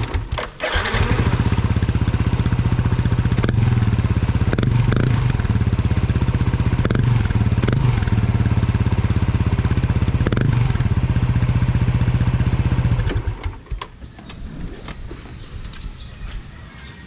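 Yamaha NMAX V1 scooter's 155 cc single-cylinder four-stroke engine running through an aftermarket open ('kalkal') exhaust, with several quick throttle blips, then stopping about thirteen seconds in.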